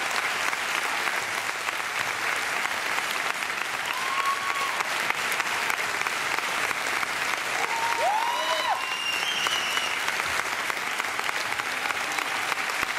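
Theatre audience applauding steadily, with a few brief shouts from the crowd rising above the clapping about four and eight seconds in.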